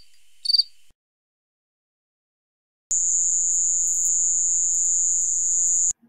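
Cricket calling song of the chirp type: one short, high-pitched chirp of a few rapid pulses just after the start, closing a regular series. After a two-second gap comes a continuous, very high-pitched insect trill lasting about three seconds, which cuts off suddenly.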